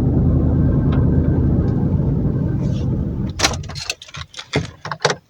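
Low, steady rumble of a car driving, heard from inside the cabin, which stops about three seconds in. A quick run of clicks and knocks follows.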